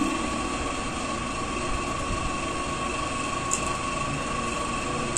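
Steady background hum with a steady high whine, and one faint click about three and a half seconds in.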